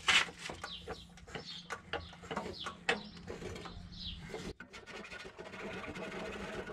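Irregular metal clicks and knocks from hand work on a car's exhaust, with birds chirping a few times.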